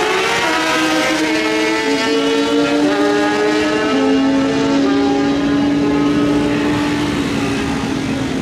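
Two drag-racing motorcycles accelerating hard down the strip. The engine pitch climbs and drops at each upshift, about five times in the first four seconds, then holds a steady note that fades slightly as the bikes pull away.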